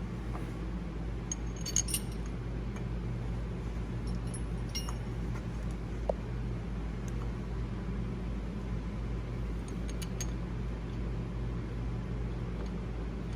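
A handful of light metallic clinks from a socket wrench and bolts while the alternator bracket is bolted on, over a steady low hum.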